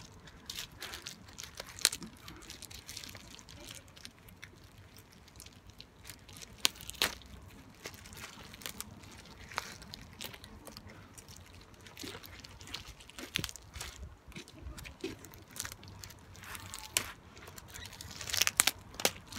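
Soggy plastic wrapping being peeled and torn open by rubber-gloved hands: irregular crinkles and crackles with a few sharper clicks.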